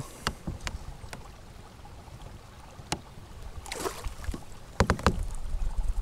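Water splashing and scattered knocks beside a kayak as a smallmouth bass is released at the surface. A cluster of louder knocks comes near the end, with a low rumble as the microphone goes under water.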